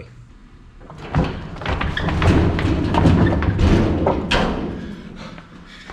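Wheeled Vevor 35-gallon fuel caddy rolling down a wooden plank ramp from a pickup bed, its wheels and cart rumbling and thumping on the boards. It starts about a second in, is loudest in the middle, has a sharp knock near the end and then dies away.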